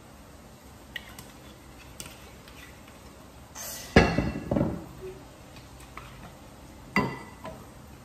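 Glass bottle being handled: a few light clicks, a short hiss, then a loud knock with a brief ring about four seconds in, and a second knock about three seconds later.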